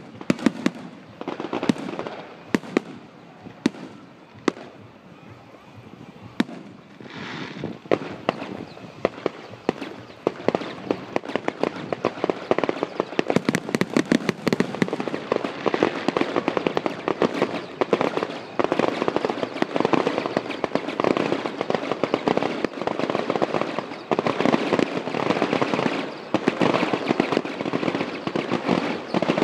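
A fireworks display with aerial shells bursting in sharp bangs. The bangs are scattered at first, then come thick and fast, building to a near-continuous barrage from about halfway through.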